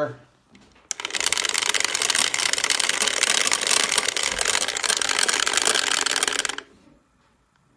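Dice rattling steadily for about six seconds, starting and stopping abruptly: a roll that sets how many times the team list gets randomized.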